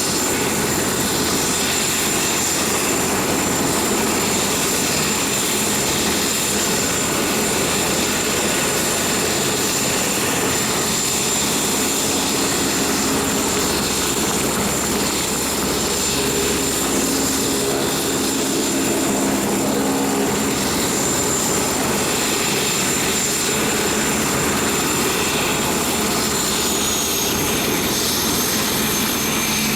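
Bell 412 helicopter running: its twin turboshaft engines give a steady high whine over the rotor and engine noise. About 27 seconds in, the whine drops to a lower pitch.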